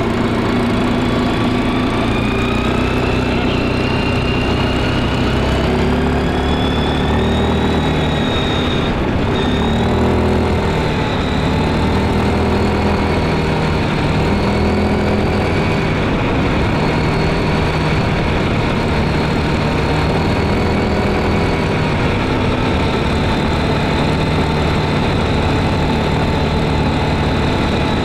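Stels ATV 300B quad bike engine running steadily under way. A higher whine rises in pitch over the first several seconds, then levels off.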